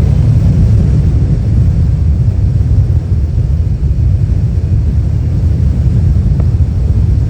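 Steady low rumble of a truck driving along the road, its engine and road noise running evenly.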